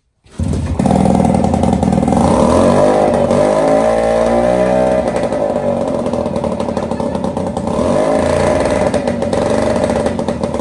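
Small outboard motor running on a test stand, starting abruptly at full level just after the start; its revs waver up and down around the middle, then hold steady.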